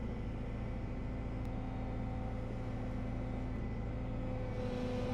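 Excavator engine running steadily, heard from inside the cab, with a low hum and a steady whine on top that grows a little louder near the end.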